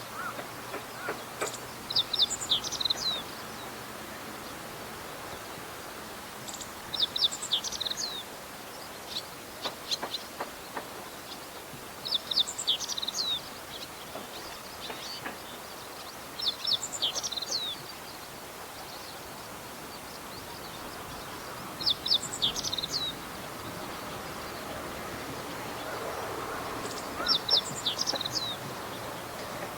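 Meadow bunting singing: six short phrases of quick, high notes, one about every five seconds.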